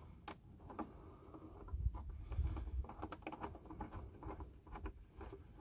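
Faint scratching and light clicks of fingers handling bolts at the plastic dash console of a garden tractor, starting the bolts by hand, with many small irregular ticks.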